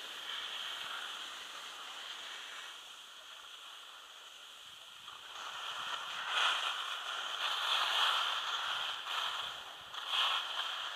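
Skis sliding and scraping over packed snow, a steady hiss that swells louder from about halfway through and again briefly near the end.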